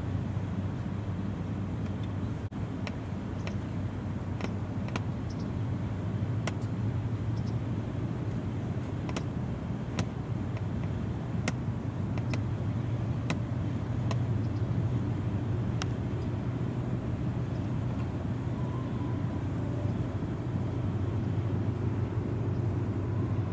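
Steady low drone of a passing sand and gravel carrier's diesel engine, carried over the water, with scattered faint sharp clicks over the first two-thirds.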